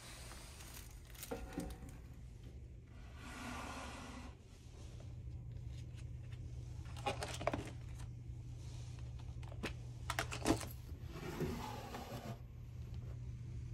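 Close-up handling sounds of hotel room furnishings: a ring binder opened and its pages turned, and a wooden drawer slid open, giving scattered clicks and knocks and a couple of short rustling, sliding sounds over a steady low hum.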